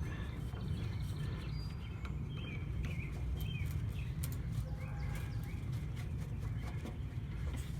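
Small birds chirping repeatedly in short rising-and-falling calls over a steady low rumble, with scattered light clicks and taps.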